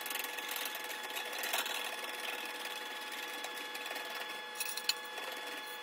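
Wire balloon whisk beating egg yolks in a glass bowl, a fast steady clinking of the wires against the glass. Hot sugar syrup is being poured in at the same time for sweet egg cream, and the yolks are kept moving so they don't scramble.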